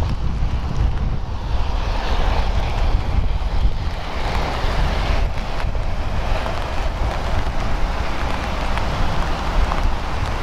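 Wind buffeting the microphone, a heavy fluttering rumble, over a steady rushing noise that swells slightly a couple of times.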